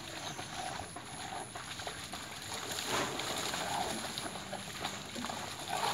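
Water splashing and sloshing as two dogs wrestle in shallow water, heard from some distance.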